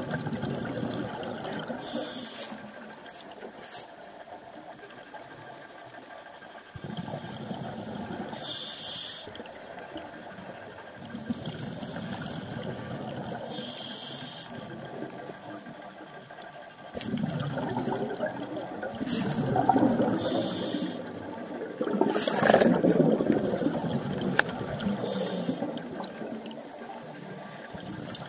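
Scuba diver breathing through a regulator underwater: about six short hissing inhalations a few seconds apart, each followed by a longer burble of exhaled bubbles, the bubbling loudest in the second half.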